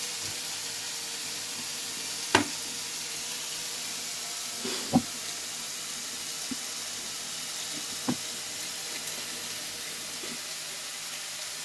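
Steady sizzling of food frying in a pan on the stove, with three brief knocks, the loudest about halfway through.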